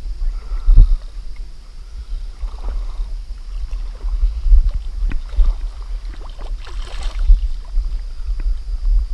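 Wind rumbling on the microphone over river water lapping and splashing, with scattered small knocks and a brief, louder splash about seven seconds in.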